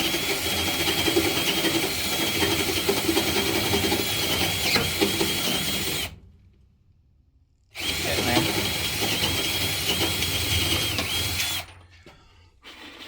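Power drill boring into the door with an undersized bit, wobbled to widen the hole. It runs about six seconds, stops briefly, then runs again for about four seconds and cuts off, followed by a few light knocks.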